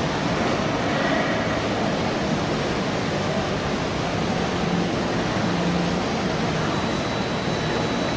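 Steady, even wash of ambient noise in a large hotel atrium, with no distinct events; a faint, thin high tone comes in near the end.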